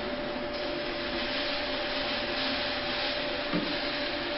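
Steady machine hum and hiss, like a fan or motor running, with a constant tone through it. A soft tap about three and a half seconds in.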